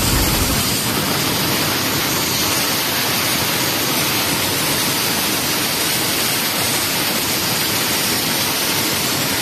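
Plasma cutting torch on a mini CNC cutting machine cutting through steel plate: the loud, steady hiss of the plasma arc and its compressed-air jet.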